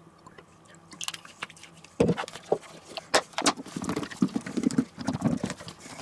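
Boiled potatoes coated in olive oil being shaken inside a closed plastic food box with a clip-on lid. A few sharp clicks come about a second in. From about two seconds in, a fast, uneven run of knocks and thuds follows as the potatoes tumble against the box.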